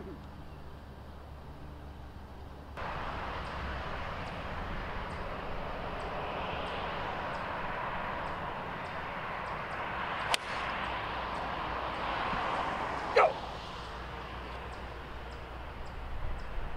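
A golf club striking a ball off the tee: one sharp crack about ten seconds in, over steady outdoor background noise. A few seconds later comes a brief, louder sound that falls steeply in pitch.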